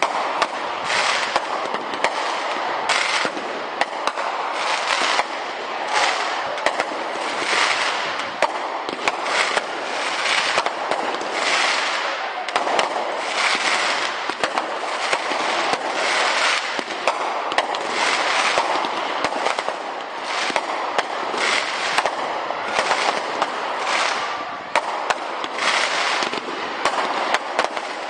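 Firework display in full flow: a continuous barrage of shells bursting in quick, overlapping bangs, roughly one burst a second with many sharper reports in between, and no letup.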